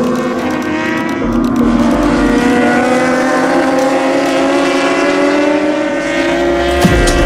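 Racing motorcycle engines running at high revs, a steady whine whose pitch climbs slowly over several seconds.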